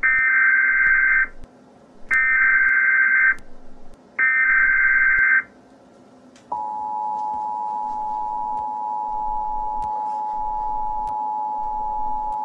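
Emergency Alert System broadcast tones: three short bursts of screechy SAME header data, then, from about six and a half seconds in, the steady two-tone attention signal.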